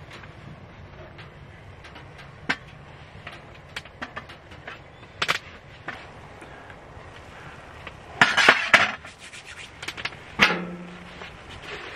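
Cookware knocking and clinking: a frying pan and its metal lid set down on an aluminium camp table, with a cluster of clatters about eight seconds in and a sharp knock with a short ring about ten seconds in. Light ticks and clicks run between them.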